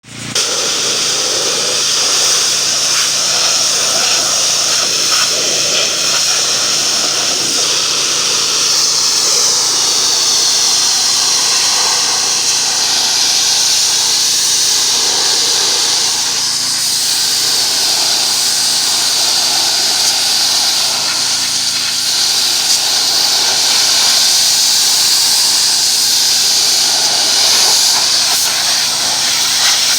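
Pressure washer spraying water onto a surface: a loud, steady hiss of the high-pressure jet.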